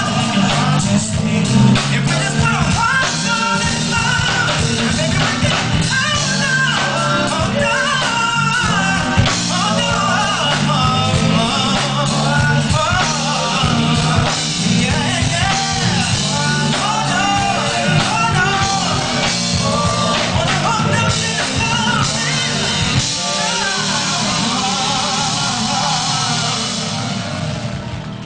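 Male R&B singer singing over a live band; the music fades out near the end.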